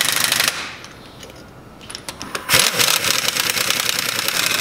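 Air impact wrench hammering on the bolts of a tractor transmission cover: a short burst at the start, a brief blip about two seconds in, then a longer run of rapid hammering from about halfway through.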